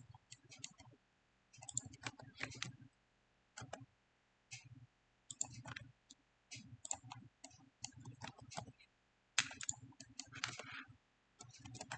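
Scattered, irregular clicks of a computer mouse and keyboard, faint and close to the microphone.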